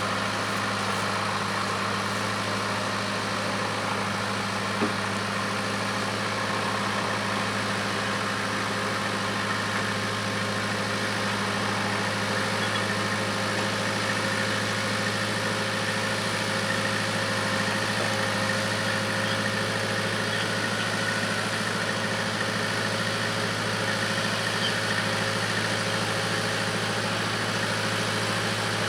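Case 580K backhoe's engine idling steadily with a constant low hum, with one brief click about five seconds in.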